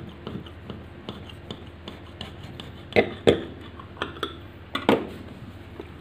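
Kitchen knife sawing through a baked sponge cake on a ceramic plate: a run of small scraping ticks as the blade moves, with sharper clinks of the metal blade, two about three seconds in and two more near five seconds.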